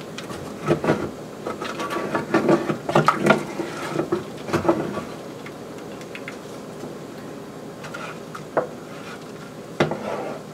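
A wooden spoon stirs and scrapes in an enamel saucepan of thin liquid, knocking against the pan's sides and bottom. The knocks are busy for about the first five seconds. After a quieter stretch, two single taps come near the end.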